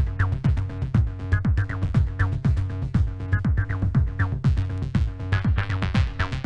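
Acid techno: a steady drum-machine beat at a little over two hits a second over a droning synthesizer bass, with short falling synth sweeps.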